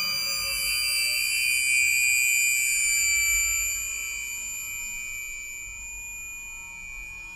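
Hanging metal rods ringing after being struck, several high, steady tones slowly fading away.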